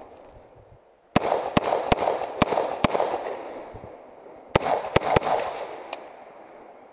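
Rapid gunshots from a scoped semi-automatic AR-style rifle: five shots about half a second apart starting about a second in, then three more quick shots about four and a half seconds in. Each shot is followed by a long rolling echo.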